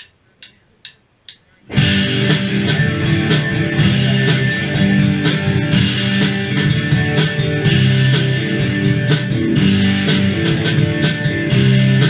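A drummer counts in with four quick clicks, evenly spaced about half a second apart. Then a rock band comes in all together and plays loudly on: electric guitar, bass guitar and drum kit.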